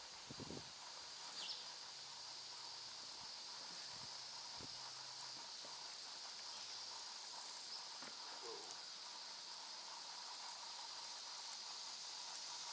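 Quiet outdoor ambience: a steady high-pitched hum of insects, with a few faint knocks near the start.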